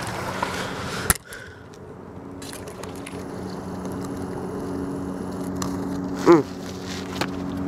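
A motor running steadily with a low hum, with a sharp click about a second in and a short pitched cry near the end.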